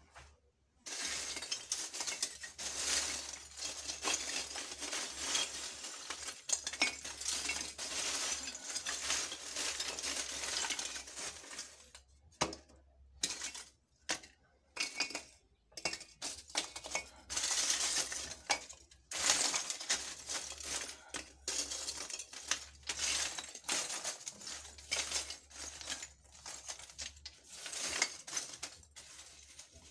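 Lumps of charcoal being poured and spread as a filter layer in a biodigester, the pieces clinking and rattling against each other in long runs broken by a few short pauses.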